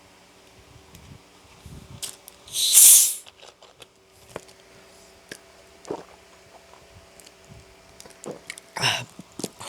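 A person's breathing and mouth noises. There is one loud, hissing breath about three seconds in, scattered small mouth clicks, and a shorter breath near the end.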